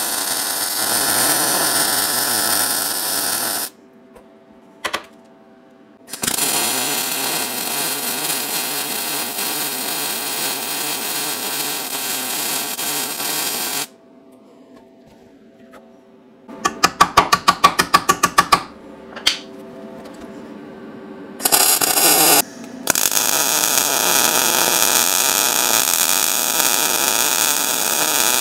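MIG welder arc crackling as a steel repair plate is skip welded and plug welded to a truck frame. The welding comes in several runs of a few seconds each with short pauses between them, and there is a rapid stuttering series of short bursts just past the middle.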